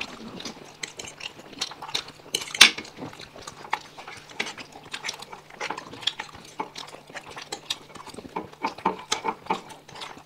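People eating fast: chewing and slurping mixed with many short clicks and clinks against plates, the sharpest about two and a half seconds in. A faint steady hum runs underneath.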